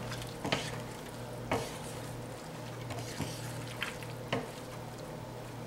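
Wooden spoon stirring chopped chicken, sausage and vegetables in a stainless steel stockpot, with a few sharp knocks of the spoon against the pot, over a steady sizzle of the food cooking.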